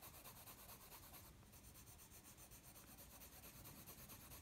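Faint scratching of a Prismacolor wax-based coloured pencil on paper, shading in quick, short back-and-forth strokes.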